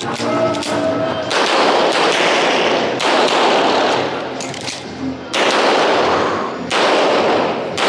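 Handgun shots fired one at a time about a second and a half apart, each with a long ringing echo, with a few fainter shots between them.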